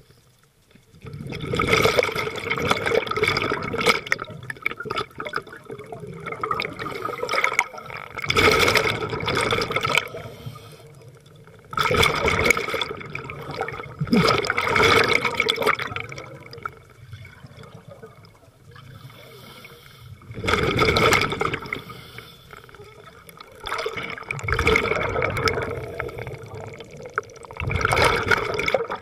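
Scuba diver breathing underwater: exhaled air bubbling out of the regulator in bursts of a second or two, every few seconds, with quieter gaps between for the inhales.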